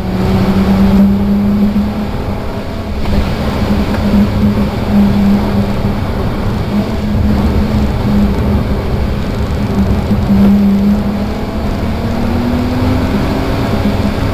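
Volkswagen R32's 3.2-litre VR6 engine at speed, heard from the rear of the car's cabin: a strong, steady engine note over a dense rumble of road noise. Near the end the note climbs in pitch as the revs rise.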